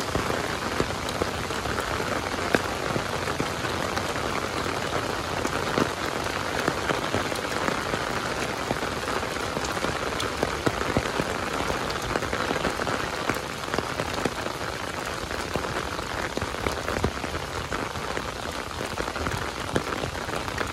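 Steady rain falling on open water: a dense, even hiss of drops hitting the surface, with scattered sharper ticks of individual drops landing close by.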